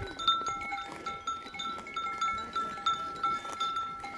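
Small bells on grazing livestock tinkling: short metallic rings at a few fixed pitches, repeating irregularly several times a second as the animals move.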